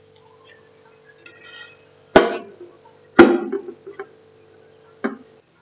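A white plate knocking against the rim of an aluminium cooking pot as it is set upside down over the pot: two sharp clinks about a second apart and a lighter one near the end.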